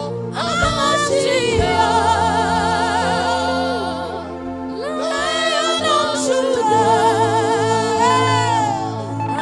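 Gospel worship singing: voices holding long notes with wide vibrato over a steady sustained accompaniment, with a short breath-like dip about four seconds in.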